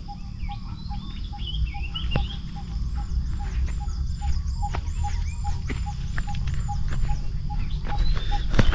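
Birds singing outdoors: one bird repeats a high arched note about a dozen times in a row for a few seconds, among other scattered chirps, with a faint call pulsing evenly about two or three times a second over a steady low rumble. A sharp knock near the end.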